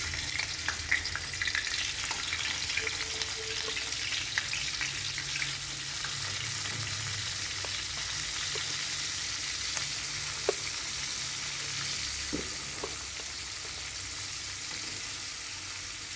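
Pieces of salted tongue sole coated in lemongrass and chili sizzling steadily as they fry in hot oil in a wok. A few sharp light clicks sound as the pieces are laid in and moved with chopsticks.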